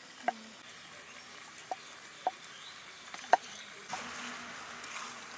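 Wooden rolling pin knocking on a wooden rolling board as dough is rolled out: four sharp knocks, the loudest about three seconds in. Near the end, a rustling hiss as dry leaves are set alight.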